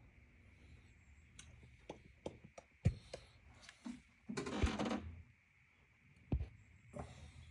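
Workshop handling noises: several sharp knocks and clicks, with a brief rush of noise about halfway.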